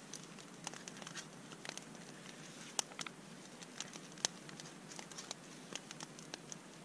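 A knife whittling a small piece of frozen Siberian cedar, giving short, irregular scraping clicks as thin shavings come off the tines of a carved fork.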